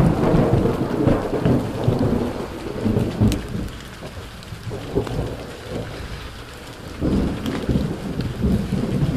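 Thunder rumbling over falling rain in a thunderstorm. The rumble is loud at the start, dies down around the middle, and swells again about seven seconds in.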